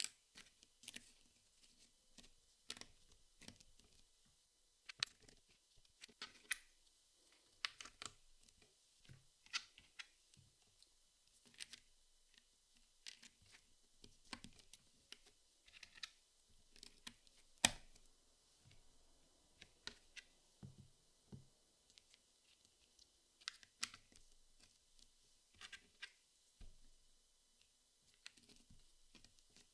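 Jigsaw puzzle pieces being handled and fitted: soft, irregular small clicks and taps, with one louder tap a little past halfway.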